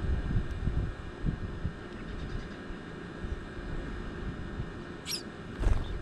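Wind buffeting an outdoor microphone in a low, uneven rumble. Near the end come a short, high wavering chirp and, just after it, a brief rustle with a low thump.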